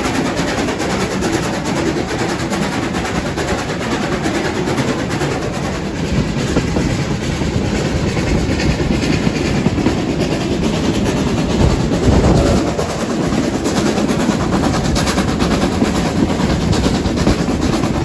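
Steam-hauled train running, heard from an open carriage: the locomotive working ahead and the carriage wheels clattering over the track.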